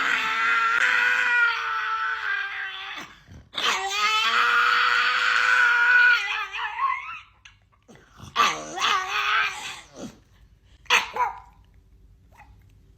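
A dog making long, drawn-out howling whines. Two steady calls of about three seconds each come first, then shorter wavering calls, and one brief call about eleven seconds in.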